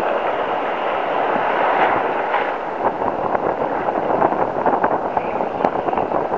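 Steady rush of surf breaking and washing up the beach, with wind on the microphone, while a spinning reel is cranked in; many short, light ticks run through it from about halfway.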